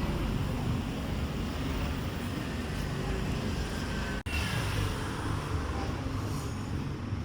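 Steady low rumbling noise, interrupted by a sudden momentary dropout about four seconds in.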